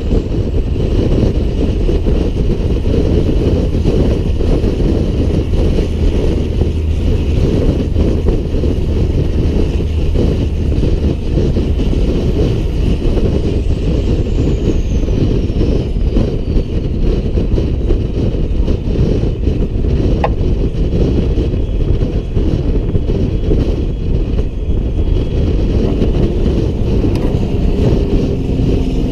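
Peterbilt 388 truck under way hauling a loaded lowboy, a steady deep run of engine and road noise, with a faint click about 20 seconds in.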